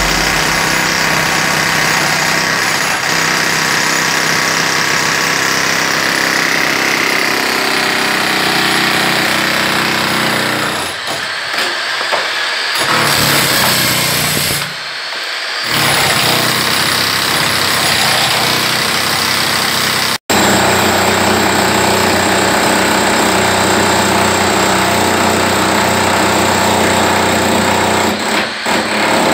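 Handheld electric demolition hammer chipping at a concrete beam overhead, a loud continuous hammering. It stops briefly twice near the middle, breaks off for an instant about twenty seconds in, then carries on.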